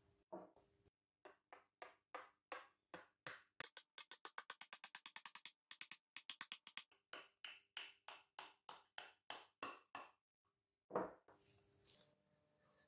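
Rubber mallet tapping a braided copper-wire cuff against a wooden mandrel to shape it: a long run of sharp taps that quicken to about six a second in the middle, then slow and stop, followed by one louder single blow.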